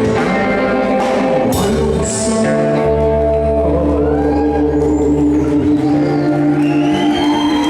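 Worship band music: sustained chords over a held bass line, with a few gliding melodic notes near the end.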